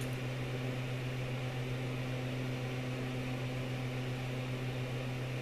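Steady low electrical hum over a faint even hiss: background room tone with nothing else standing out.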